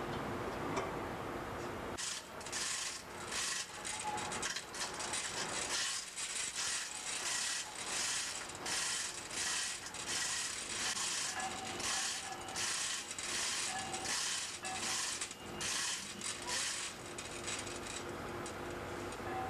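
A ratchet mechanism worked in repeated strokes, about two a second. The strokes start about two seconds in and stop a couple of seconds before the end.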